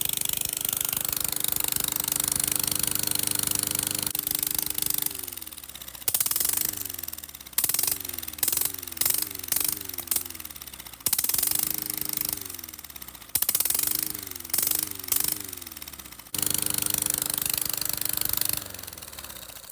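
Single-cylinder Briggs & Stratton lawn mower engine running with its muffler removed, so the open exhaust is very loud and rapid-fire. It runs flat out, then drops back and is revved up and down in a string of quick blips. It returns to full speed and dies away near the end as it is shut off.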